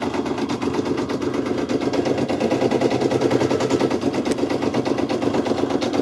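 Brother PE700 home embroidery machine stitching a design, its needle running in a rapid, even clatter.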